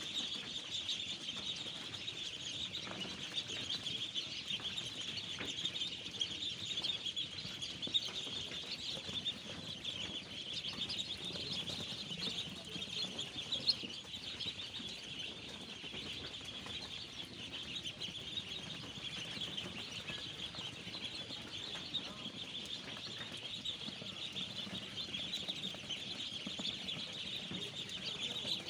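A large brood of ducklings peeping all at once, a dense, steady chorus of many overlapping high-pitched peeps.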